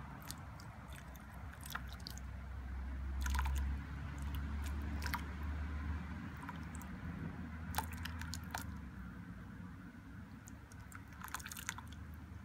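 A thin stream of water pouring from a glass vessel over an apple and trickling and splashing into a glass bowl, with scattered sharp clicks and crackles. A low rumble swells a few seconds in.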